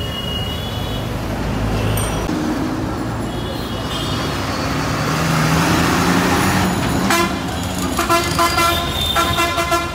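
Busy street traffic with buses driving past close by: a steady rumble of engines and tyres, with a bus engine hum growing in the middle. From about seven seconds in, short horn blasts sound again and again.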